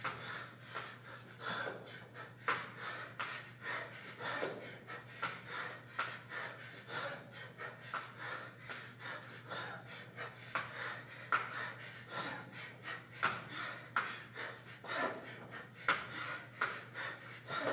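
A man panting hard and fast, heavy breaths in and out about twice a second, winded from intense exercise.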